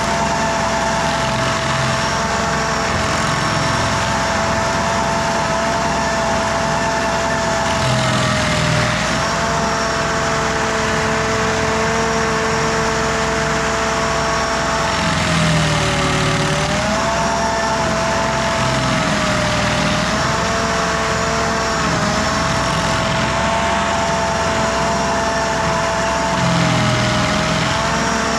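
Carlton SP6016TRX tracked stump grinder running at full throttle, its engine note sagging briefly about four times as the cutter wheel bites into the stump and loads the engine, with rough grinding noise at those moments.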